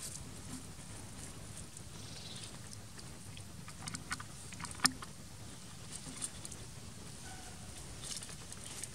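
Long-tailed macaque eating a ripe mango: a few sharp, wet clicks and smacks of biting and chewing, the loudest about five seconds in, over a low steady rumble.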